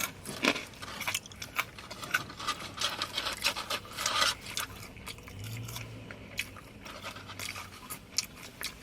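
People chewing and eating food close to the microphone: irregular crunches, mouth clicks and smacking.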